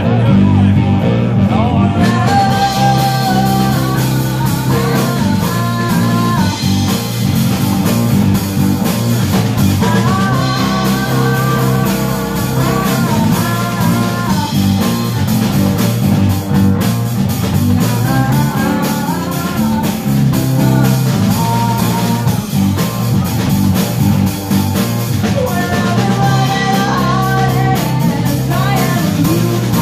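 Live blues-rock band playing: a female singer's voice over electric guitars, bass and drum kit.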